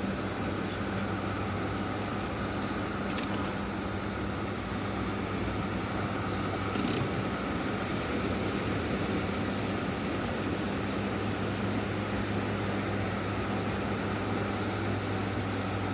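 Steady low engine hum over a constant noisy wash, with two brief high jingling clicks about three and seven seconds in.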